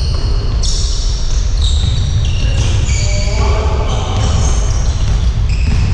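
Basketball shoes squeaking on a sports-hall floor as players run and cut: a string of short high squeals at changing pitches, over a steady low rumble.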